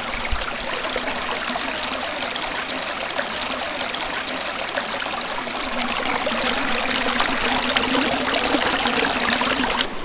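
Running water flowing and splashing steadily, a dense rush with fine splashes and drips, growing a little louder about two-thirds of the way through.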